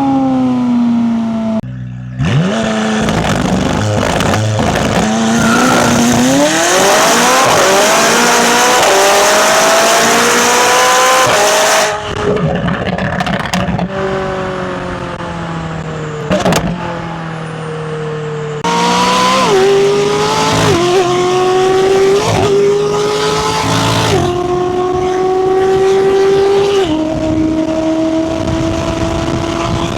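McLaren 570S twin-turbo V8 accelerating hard, revs climbing for about ten seconds before dropping away, then pulling again through a quick series of upshifts, the note stepping down every second or two.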